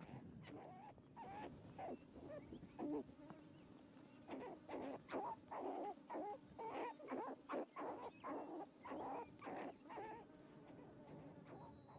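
Arctic fox cubs whining and yelping as they scuffle: a run of short cries, about two a second, louder from about four seconds in.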